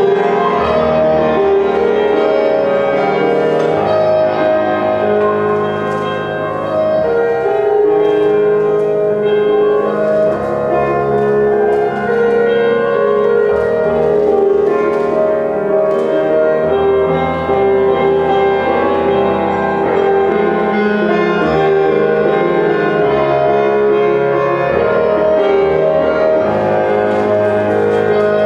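Solo piano playing continuous classical-style music, the kind used as ballet barre accompaniment.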